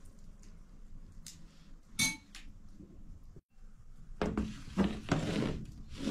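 A single sharp metal clink about two seconds in, then from about four seconds in a round metal pizza tray scraping and rattling as it is slid into a wood-fired oven.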